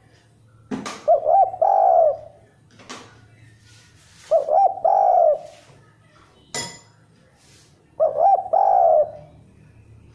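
Spotted dove cooing: three phrases about three and a half seconds apart, each two short notes followed by a longer, drawn-out note. A sharp click falls between the second and third phrases.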